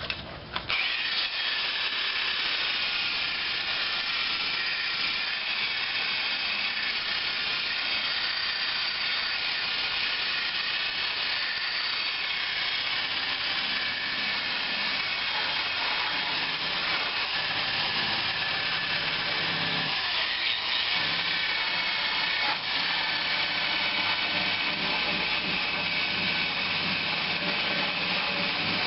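Electric drill spinning a rotary brush against rusted steel body panel to strip loose paint and rust, a steady high whine that starts about half a second in and holds with small shifts in pitch as it is worked over the metal.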